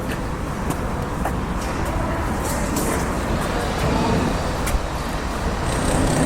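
Street traffic ambience: a steady, continuous wash of road vehicle noise, with a few faint ticks scattered through it.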